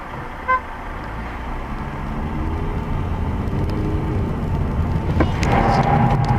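Car engine and road noise heard from inside the cabin, the engine note rising slowly as the car gathers speed, with a short beep about half a second in. Near the end the noise swells and grows louder.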